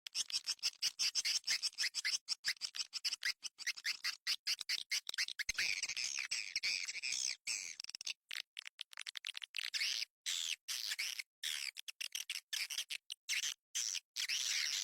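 Swiftlet lure call recording: rapid, high-pitched twittering chatter of swiftlets in quick runs broken by short gaps, the kind of track played in swiftlet houses to draw the birds in to nest.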